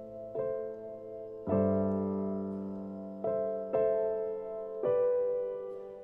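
Background music: slow, soft piano chords, struck about five times and each left to ring out and fade.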